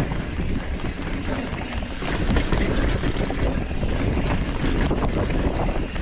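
Wind rumbling on the microphone of a camera riding along on a hardtail mountain bike, with the tyres crunching over dirt and rock and the bike rattling and clicking over the bumps.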